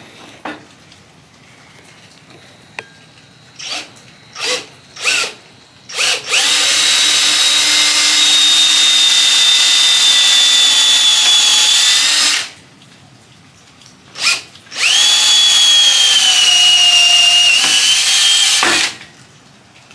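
Cordless drill boring into a wooden tomahawk handle: a few short trigger blips, then two long runs of several seconds each with a brief blip between, the whine sinking a little in pitch as the bit cuts.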